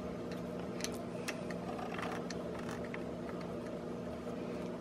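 Faint scattered plastic clicks and ticks as a Boya MM1 shotgun mic's threaded shoe mount is twisted onto a mini tripod grip, over a steady low hum.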